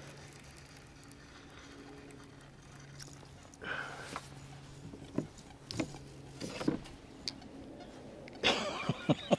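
Electric trolling motor humming steadily. From about four seconds in, scattered knocks and rattles as a fishing rod is taken up and handled in a kayak, loudest near the end.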